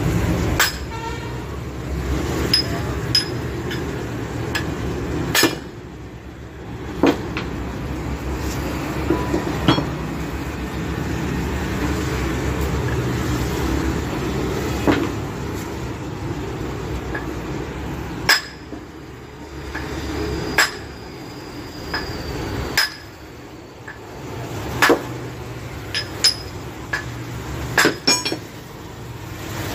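Hand hammer striking the CV joint on a vehicle drive axle shaft to knock the joint off. Sharp metal-on-metal blows come irregularly, from under a second to several seconds apart, and some ring briefly.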